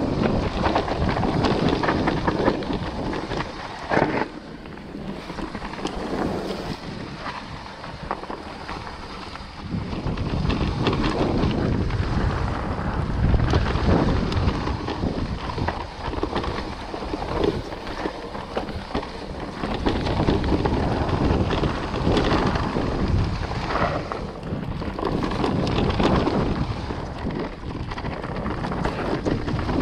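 Wind buffeting an action camera's microphone during a fast electric-mountain-bike descent, mixed with the tyres and bike rattling over rough ground. The noise surges and eases with the terrain, quieter for a few seconds after a sharp knock about four seconds in.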